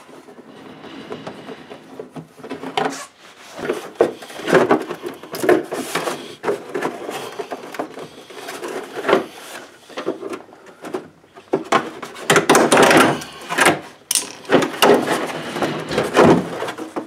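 Car fender liner being unfastened and worked out of the front wheel well: irregular scraping, rubbing and knocking of the liner against the wheel arch, busier from about three seconds in.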